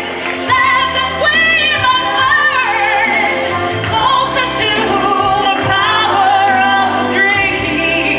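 A woman singing solo into a microphone, her held notes wavering with a wide vibrato, over a steady low instrumental accompaniment.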